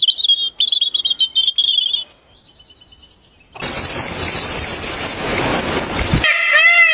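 A bird's quick high chirping trill for about two seconds, then fainter chirps. About halfway through, a loud harsh noisy sound cuts in for a couple of seconds. Near the end it switches abruptly to a repeated rising-and-falling call, about two a second.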